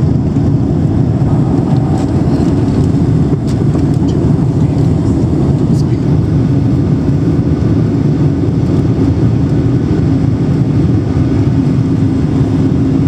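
Airliner cabin noise during the climb after takeoff: a loud, steady rumble of engines and rushing air heard from a window seat over the wing, with a faint steady hum.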